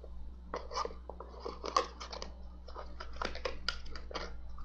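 A plastic bag rustling and crinkling, with scattered clicks and taps of cosmetic containers being handled.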